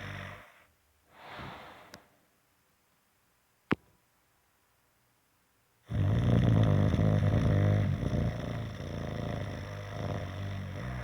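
Snoring: a snore trails off at the start and a soft breath follows. A sharp click comes a little under four seconds in, then a few seconds of dead silence. A long, loud, low snore starts about six seconds in and goes on.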